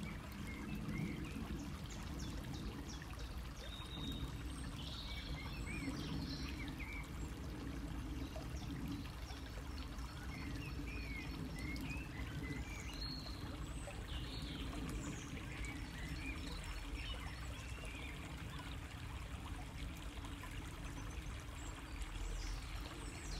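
Small birds chirping in short calls scattered throughout, over a steady low rumble of background noise.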